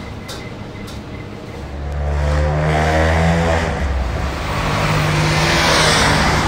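A motor vehicle's engine running close by on a street, coming up loudly about two seconds in and passing with a swell of tyre and engine hiss.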